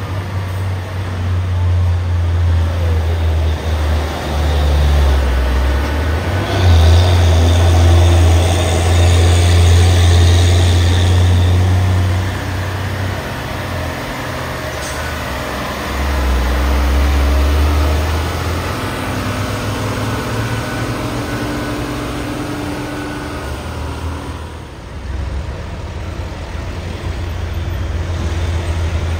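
Heavy diesel trucks passing on a hill climb, with a deep engine rumble that swells and fades. It is loudest about seven to eleven seconds in, when a steady hiss runs alongside it for several seconds.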